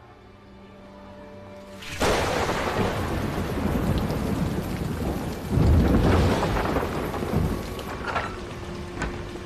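Heavy rain comes in suddenly about two seconds in, with a low rumble of thunder near the middle. Soft music plays quietly before the rain starts.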